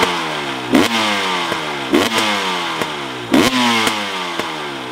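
Two-stroke 300 enduro motorcycle with a Pro Circuit exhaust, revved at standstill in four throttle blips. Each blip snaps up and then falls back in pitch toward idle.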